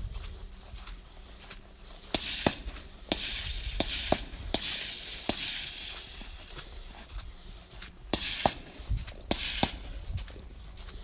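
Gunfire at steel targets: a string of about seven shots in quick succession, a pause of a few seconds, then four more, each with a short ringing echo.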